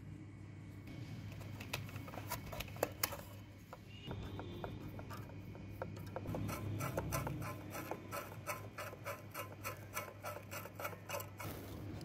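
Screwdriver backing screws out of the plastic housing of a Playskool toy cassette recorder: scraping and creaking of metal on plastic, a few sharp clicks, then a quick, even run of clicks at about four or five a second near the end.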